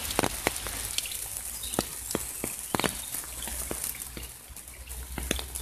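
Steady rain falling on puddles and wet ground, a continuous hiss broken by sharp, irregular ticks of large drops landing close by, a few each second.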